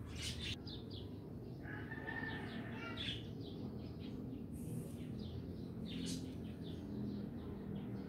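Birds chirping in short, high calls scattered through, over a steady low background rumble.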